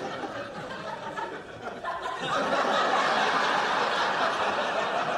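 Studio audience laughing. The laughter dies down about a second in, then swells up again about two seconds in and holds.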